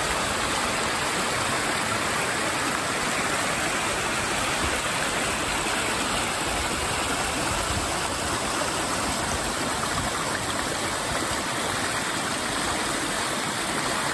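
Small forest creek rushing over rocks and a little falls, a steady, unbroken rush of water.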